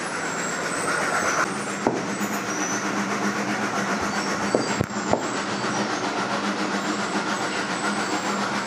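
A steady mechanical rush with a low, even hum, and a few short soft knocks about two seconds in and again around the middle, as hands press and pat wet cow dung into cakes.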